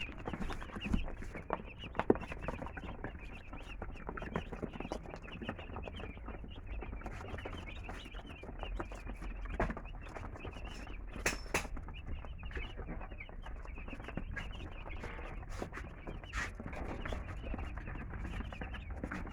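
A brood of three-day-old chicks peeping continuously, with many small taps scattered through.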